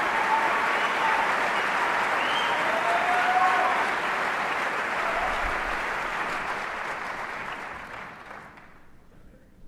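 Concert audience applauding, with a few whistles and cheers, fading out gradually over the last few seconds.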